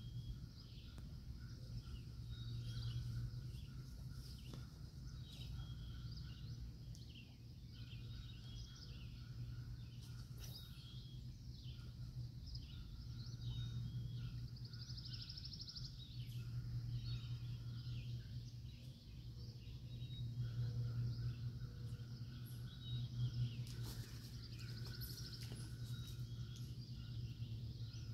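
Riverside outdoor ambience: birds chirping with many short calls and a quick trill, over a low rumble that swells and fades every few seconds.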